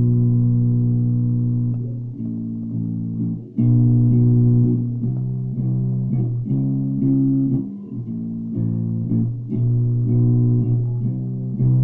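Ibanez Jumpstart four-string electric bass being played: a riff of plucked, sustained notes in short phrases, with brief breaks about a third and two thirds of the way through. Recorded through a phone's microphone, which gives it the poor sound the player apologises for.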